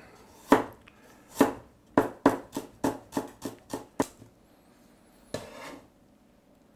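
Chinese cleaver cutting fresh ginger on a wooden chopping board. Two single chops, then a quick run of about eight knocks of the blade on the board, about four a second.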